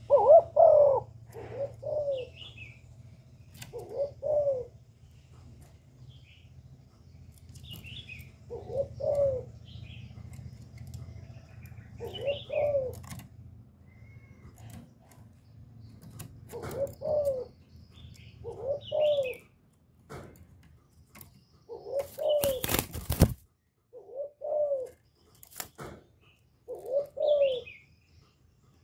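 Spotted dove singing its cooing song over and over, a short phrase of low, falling coo notes every few seconds. A brief burst of rustling noise comes about two-thirds of the way through.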